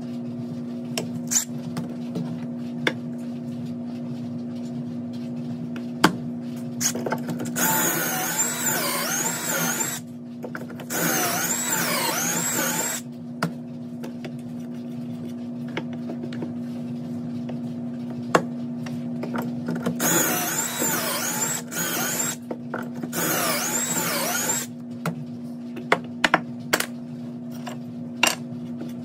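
Cordless drill boring pocket holes with a stepped bit into hardwood held in a Kreg pocket-hole jig: four loud runs of two to three seconds each, in two pairs. Between them come sharp clicks and knocks from the jig's clamp and the boards being handled, over a steady low hum.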